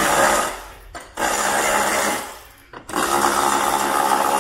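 Ratchet and socket being worked on the wheel nut of a child's electric ride-on toy car, giving three runs of rapid mechanical whirring, with short breaks about a second and nearly three seconds in.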